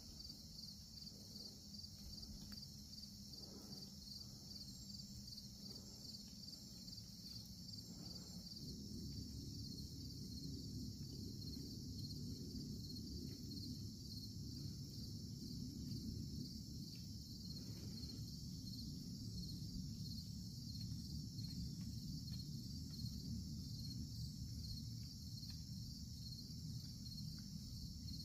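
Steady chorus of insects with a high, pulsing trill, over a low rumbling noise that grows louder about nine seconds in.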